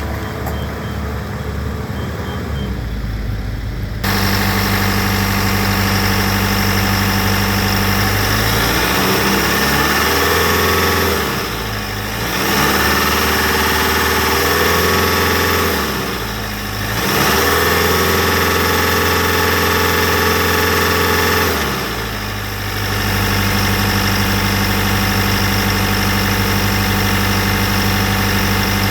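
Bobcat T76 compact track loader's diesel engine running. About four seconds in it comes in loud and idles steadily. It is then revved up and held high, with two brief dips, before dropping back to a steady idle a little past halfway.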